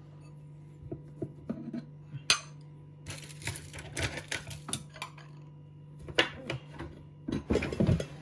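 Ceramic dishes and wooden chopsticks clinking and rattling in a kitchen drawer as a bowl is lifted out and chopsticks are picked from a cutlery tray. The drawer slides shut near the end.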